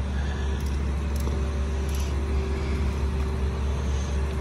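Wheel loader's diesel engine running steadily under load as it holds a pickup truck up on its forks: a low, even rumble.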